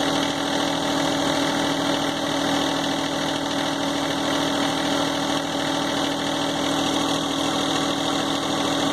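John Deere tractor engine idling steadily.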